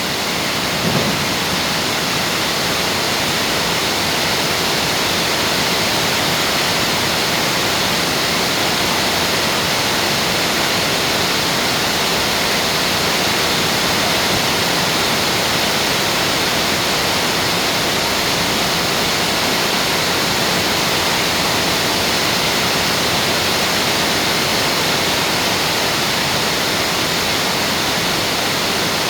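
Heavy rain pouring down steadily during a storm.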